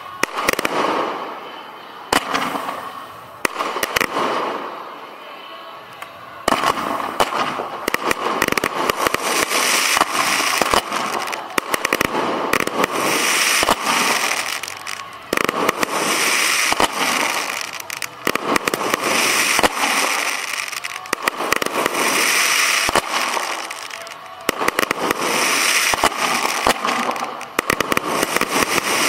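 Professional firework display fired at close range: scattered sharp launch bangs for about the first six seconds, then a dense, unbroken barrage of launches and crackling bursts.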